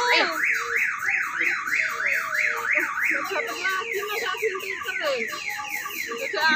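An electronic siren-like tone warbling up and down about three times a second, growing fainter after a few seconds.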